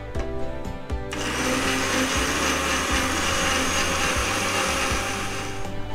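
Countertop electric blender running, blending bananas with honey, lime juice and water into juice: it switches on about a second in, runs steadily, and stops just before the end.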